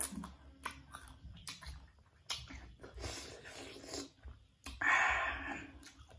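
Close-up crisp bites and wet chewing of firm unripe mango, with scattered mouth clicks. About five seconds in there is one loud, breathy hiss of air lasting under a second.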